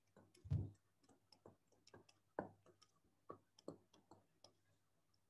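Light, irregular clicks and taps of a stylus on a tablet screen while a word is handwritten, with a soft thump about half a second in; the tapping stops about four and a half seconds in.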